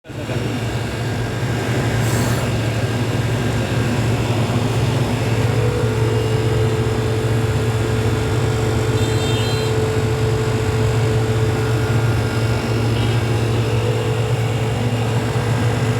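Compressor dehumidifier machine running steadily: a constant low hum with a steady higher tone over even fan noise.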